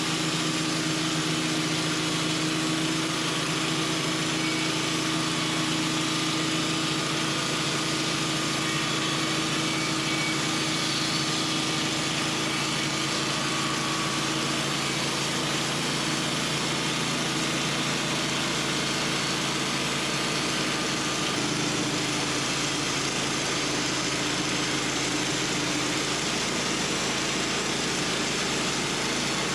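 Sawmill engine running steadily as the mill saws through a hickory log. The engine note shifts a little past twenty seconds in.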